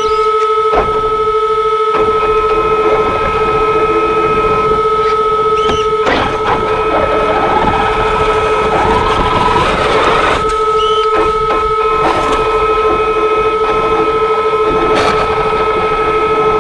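Traxxas X-Maxx RC truck's brushless electric motor and drivetrain giving off a steady high whine, with a rougher scraping noise about seven to ten seconds in as the plastic plow blade pushes snow, and a few sharp knocks.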